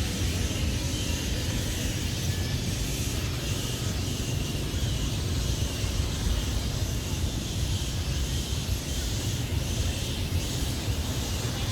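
Steady low rumble with an even hiss over it, the running noise of a vehicle on the move.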